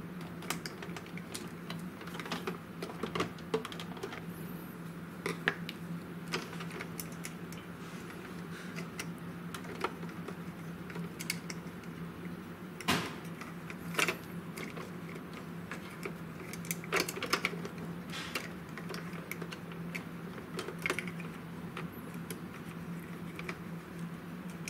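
Scattered small clicks and taps of plastic inkjet-printer parts being handled, pressed and pried apart by hand, the sharpest few about halfway through, over a steady low hum.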